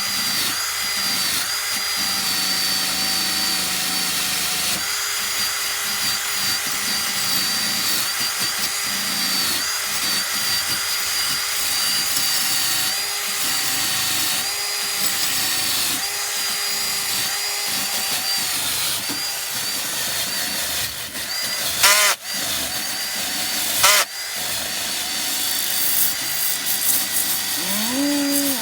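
Handheld power tool spinning a rotary cleaning attachment against a faucet fitting, scouring off hard-water deposits; its motor whine wavers and dips as it bears on the metal. Two sharp knocks about two seconds apart near the end.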